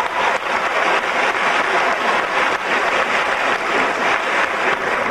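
Theatre audience applauding steadily at the end of a musical number.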